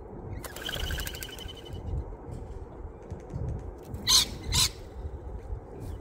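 Two short, harsh screeches from rainbow lorikeets a little past the middle, the loudest sounds, after a quieter trilling bird call near the start. A steady low rumble runs underneath.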